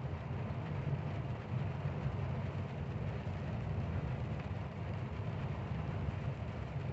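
Steady low drone of a truck's engine and cab, with road noise from driving on a wet highway in the rain.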